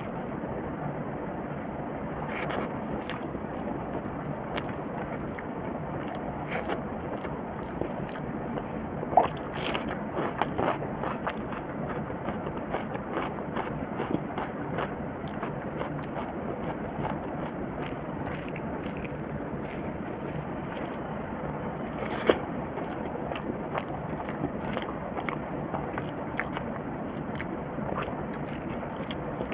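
Fingers mixing rice and egg curry on a steel plate: wet squishing and scraping with frequent small clicks, and two louder sharp clicks about 9 and 22 seconds in, over steady background noise.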